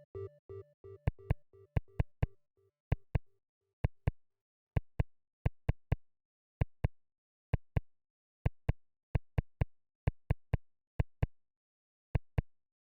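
Electronic Skype ringtone track: its last synthesized notes die away in the first second or so, then a string of short, sharp clicks follows, singly and in pairs, at uneven spacing.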